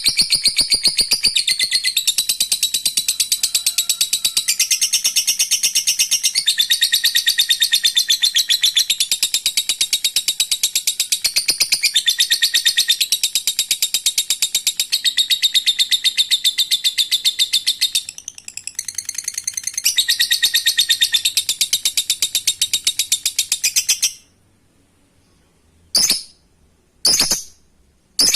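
Lovebird singing its long 'ngekek': a fast, high-pitched chattering trill that runs unbroken for over twenty seconds, faltering briefly once, then stops abruptly. A few short, separate chirps follow near the end.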